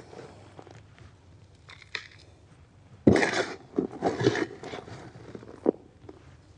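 Hand scoop digging into loose potting mix in a plastic basin: a run of short scraping, crunching strokes, with a sharp knock about three seconds in.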